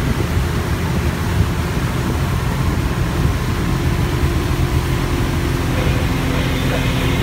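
Motorboat under way at speed: a steady engine drone over the rush of water churned up by the hull.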